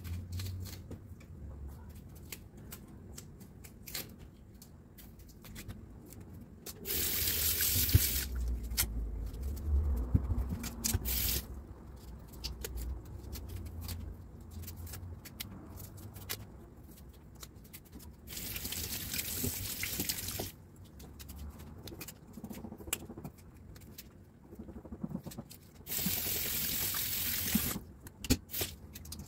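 Kitchen tap running into a stainless steel sink in three short bursts, each a second or two long. Between them a knife cuts and scrapes the bark-like skin off cassava roots, making many small clicks.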